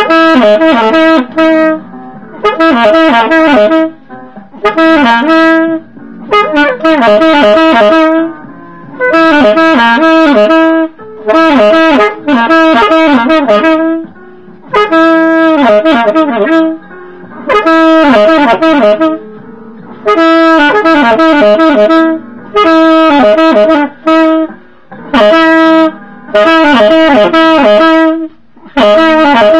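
1920s Buescher True Tone low-pitch alto saxophone playing a slow jazz tune in short phrases, with brief pauses between them.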